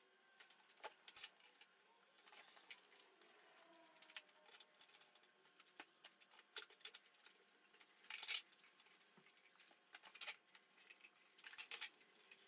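Near silence, with faint scattered clicks and a few short rustles, the clearest about eight, ten and twelve seconds in.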